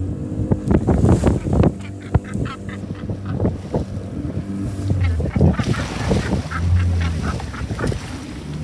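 Fishing boat's engine running with a steady low drone, under waves splashing and slapping against the hull.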